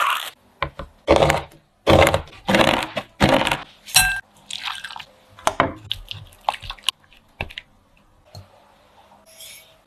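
Close-up kitchen sounds: foil crinkling off a dark chocolate bar and a knife chopping the chocolate in several loud crunchy strokes, then quieter clicks and soft scraping as melted chocolate is stirred in a glass bowl.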